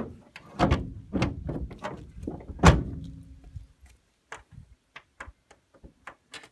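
Knocks and clunks of metal fittings being worked by hand at the wing root of a folding-wing light aircraft as the wing is rigged. The clunks come close together, with one loud clunk about two and a half seconds in and a brief ring after it, then only light clicks.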